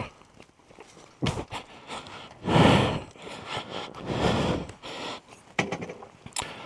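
A man's loud, straining breaths and grunts as he heaves a fallen KTM 890 Adventure R motorcycle upright, several hard exhales a second or so apart, with a few knocks from the bike.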